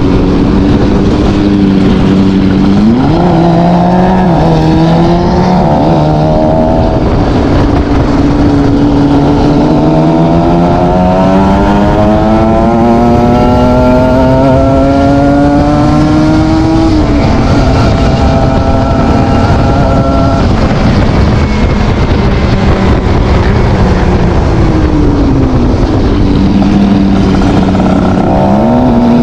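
Exhaust of a ZX 300 R motorcycle under way. The engine note climbs slowly and steadily as it accelerates, falls back when the throttle closes, then dips and rises again near the end, over a rough rushing noise.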